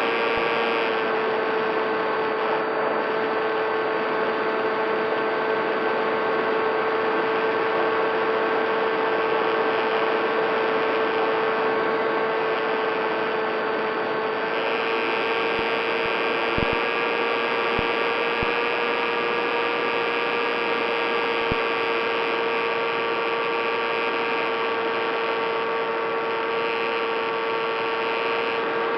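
Electric motor and propeller of a Skywalker FPV model plane, heard from on board, running steadily at cruise with a constant high whine over wind rush. The pitch eases down slightly about a second in.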